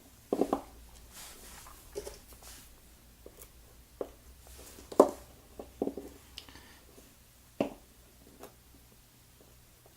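Scattered small clicks and taps of hands working a disassembled pin-tumbler lock, as key pins are taken out of the ASSA Twin Combi's core one at a time; the sharpest click comes about halfway through.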